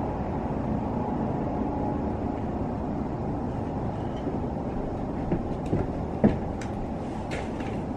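Helicopter running steadily after landing: an even, low rumble with hiss. A few short clicks come between about five and seven seconds in.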